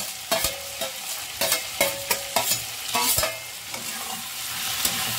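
Steel spatula clinking and scraping against a steel plate and a steel kadai while tomatoes are stirred into onion masala frying in oil, with a sizzle underneath. The clinks come in quick succession for about three seconds, then ease off, leaving a steady sizzle.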